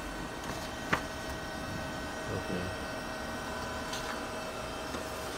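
Canon imagePRESS C1 colour copier running, a steady fan hum with a few thin, high steady whining tones. There is one sharp click about a second in.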